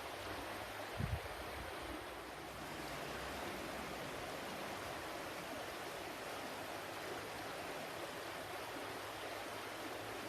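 Water flowing in a steady, even rush, with one brief low thump about a second in.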